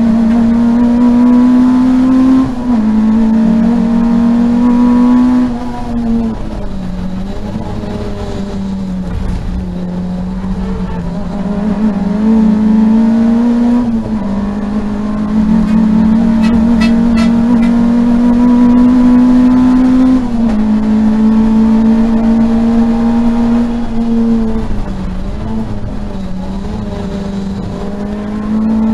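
Race-prepared Peugeot 205 GTi's four-cylinder engine heard from inside the cabin, held at high revs on full throttle: its pitch climbs slowly and drops sharply at each upshift, with quieter, lower stretches where it eases off and changes down for corners.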